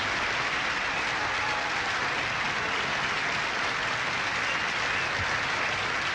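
Studio audience applauding steadily in a large banquet room.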